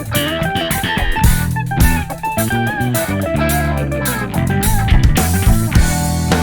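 Background music with electric guitar, bass and a drum-kit beat.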